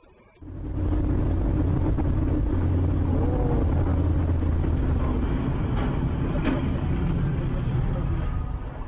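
Steady low rumble of a moving car, engine and road noise, with a couple of brief clicks partway through.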